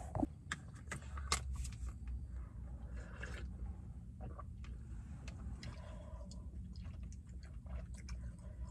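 Close-up handling noises: small clicks and rustles, then a short blow into a tissue about three to four seconds in, along with chewing of fruit.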